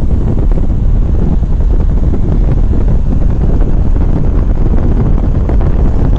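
Loud, steady wind rumble buffeting the phone's microphone while filming from a moving vehicle, with the vehicle's road noise underneath.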